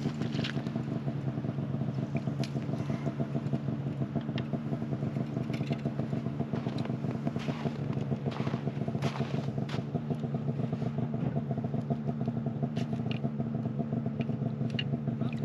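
Power ice auger running steadily as it bores a hole through the ice, its motor under load throughout, with scattered scraping clicks of the blades and ice chips.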